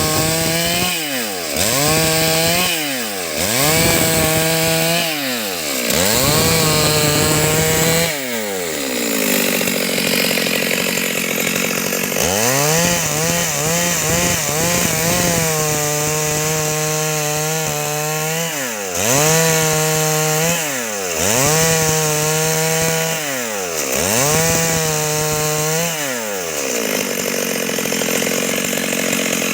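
Stihl MS 382 two-stroke chainsaw running at high revs while cutting a log into boards. The revs drop briefly and climb back every two seconds or so; around eight seconds in they sink for a few seconds before rising again.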